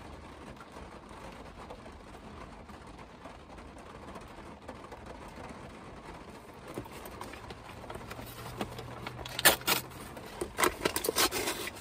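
Light rain on a parked car's roof, heard from inside the cabin as a faint, steady patter. From about nine and a half seconds in, a paper sandwich wrapper crinkles and rustles several times, louder than the rain.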